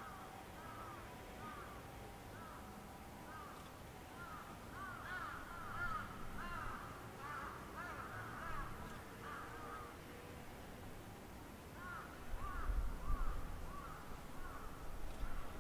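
Crows cawing repeatedly, many short calls in loose overlapping runs. A low rumble rises in the last few seconds.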